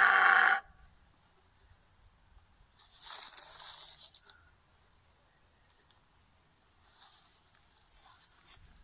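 Roe deer barking: a loud bark ends about half a second in, and a second, quieter and longer bark comes about three seconds in.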